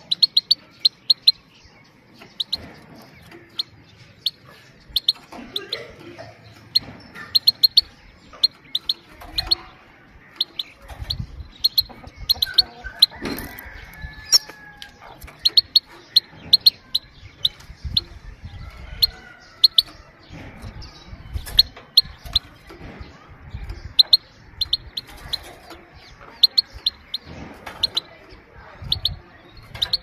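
Female Himalayan (grey-headed) goldfinch, not in breeding condition, giving short, high 'pit-pit' calls in quick runs of three to five, repeated every second or two.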